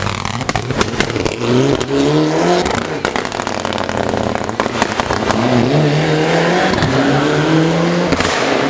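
Competition car engine revving and pulling up through the revs twice, with sharp exhaust pops and crackles from the backfiring exhaust, thickest in the first few seconds.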